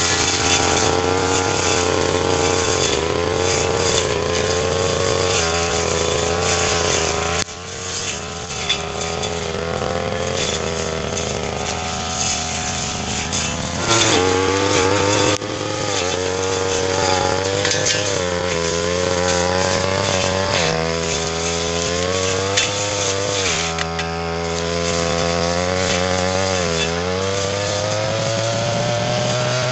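Brush cutter engine running under load while cutting ferny grass, its pitch wavering up and down with throttle and load. It drops off sharply about seven seconds in and again around fifteen seconds, then climbs steadily near the end.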